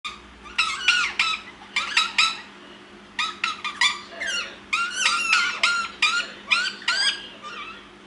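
Indian ringneck parakeets chattering: short squeaky calls that bend up and down in pitch, coming in quick clusters with a brief pause about two and a half seconds in.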